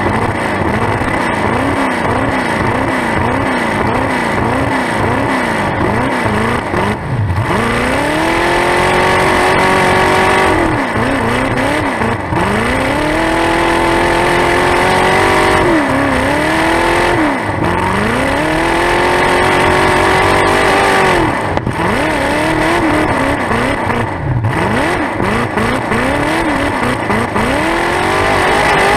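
Demolition derby muscle car's V8, exhaust through open pipes poking up out of the hood, heard close up. Its pitch wavers quickly at first, then it revs up and holds high several times, lifting off in between, as the car drives and pushes.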